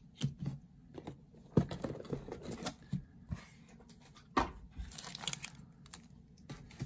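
Foil Yu-Gi-Oh booster pack being taken out of a cardboard booster box and handled, its wrapper crinkling and rustling in irregular short bursts with a few sharp tearing sounds.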